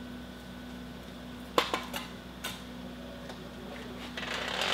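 Metal clicks and knocks from the AGS-17 grenade launcher's steel tripod as its legs and locking levers are worked: one sharp click about a second and a half in, a few lighter clicks just after, then a rustling scrape near the end.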